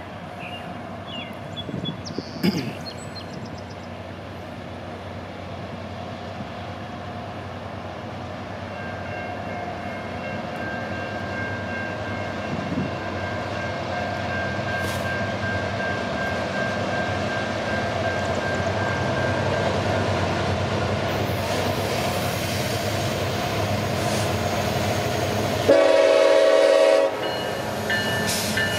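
Loaded coal train led by a Norfolk Southern EMD SD70ACe diesel locomotive approaching, its engine and rail noise growing steadily louder. Near the end the locomotive horn sounds one short blast, and a second blast begins right at the end.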